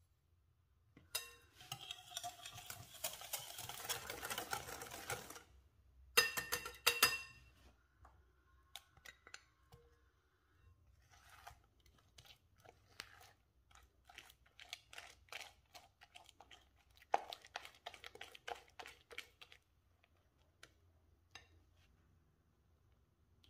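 Cake batter being mixed in a glass bowl: a few seconds of continuous stirring and scraping against the glass, a few louder knocks about six seconds in, then butter mashed into the egg and sugar with a silicone spatula in quick short strokes.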